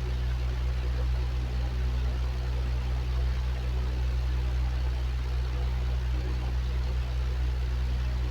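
Electric fan running steadily: a constant low hum under an even, airy rushing noise.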